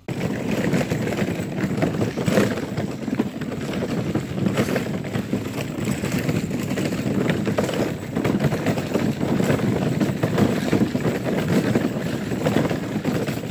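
Plastic children's wagon wheels rolling over a gravel path: a steady rough rumble and crunch that starts suddenly.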